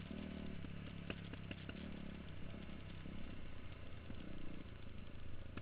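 2009 KTM supermoto's engine running while riding on a dirt track, heard from a camera mounted on the bike, with its pitch shifting a little as the throttle changes. Scattered clicks come mostly in the first two seconds.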